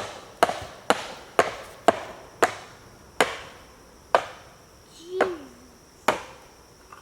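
A hammer striking a nail, driving it into the ground: about nine sharp blows, about two a second at first, then slowing and spacing out.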